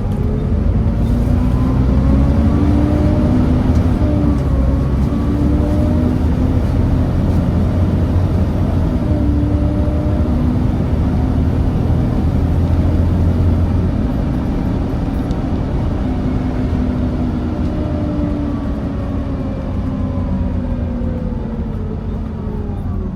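Volvo B7TL double-decker bus's Volvo D7C diesel engine and ZF Ecomat six-speed automatic gearbox running under way, heard from inside the bus. The engine note rises over the first few seconds, holds, then slowly falls as the bus eases off.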